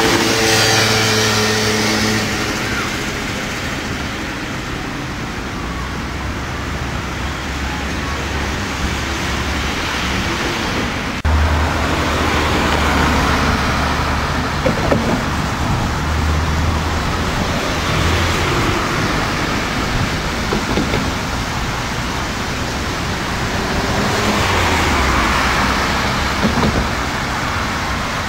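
Road traffic: cars driving past, a steady rush of engine and tyre noise that swells as one passes near the start and again near the end.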